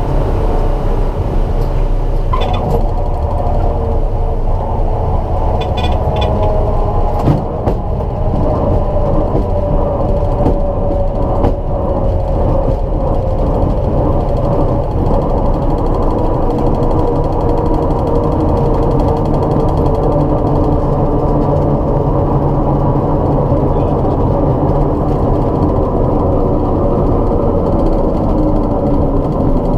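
Light single-engine piston aircraft taxiing, heard from the cockpit: engine and propeller running steadily at low power, with a metallic grinding and vibration from the airframe, which the owner suspects comes from low main landing gear oleo pressure. The engine note drops near the end.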